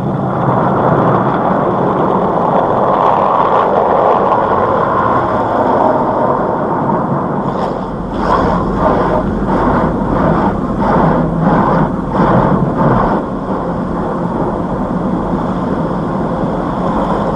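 Automatic tunnel car wash heard from inside the car: a steady rush of spray and machinery, with a run of rhythmic beats about two a second from roughly eight to thirteen seconds in.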